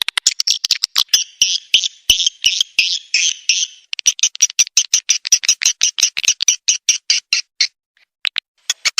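Swiftlet lure sound: rapid, high-pitched chirping and twittering of edible-nest swiftlets, a call recording played to draw swiftlets into a bird house. It breaks off briefly about eight seconds in.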